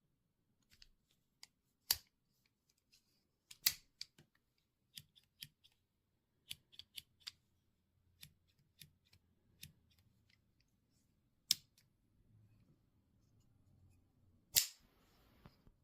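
Metal multitool being handled: a string of sharp, irregular clicks and snaps as its parts are worked. Louder snaps come about two, four and eleven seconds in. The loudest comes near the end and is followed by a brief rasp.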